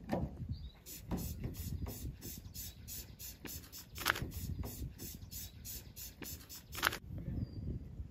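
Steady, evenly spaced footsteps on a brick-paved path, each step a short scuff, with low rumbling handling noise. The steps stop about seven seconds in, and a bird chirps faintly twice after.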